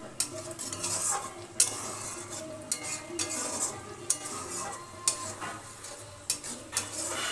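A utensil stirring and scraping a sizzling spice masala of onion paste, ginger-garlic paste and ground spices frying in oil in a pan, knocking against the pan about once a second.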